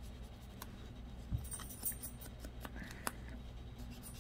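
An ink dauber dabbed and rubbed along the edges of a small paper word strip: faint light taps and scratchy rubbing, with a dull knock about a second and a half in and a few sharper clicks later.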